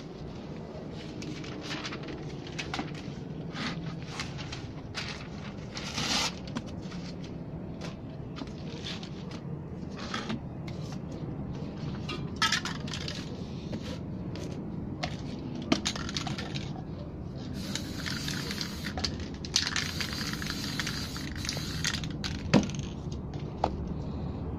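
Spray-paint cans hissing in short bursts, with a couple of longer sprays past the middle, amid the crinkling, tapping and clicking of paper and cans being handled.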